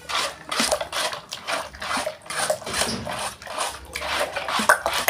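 A spatula scraping and stirring through thick peanut chili sauce in a wok, in repeated strokes of about two to three a second.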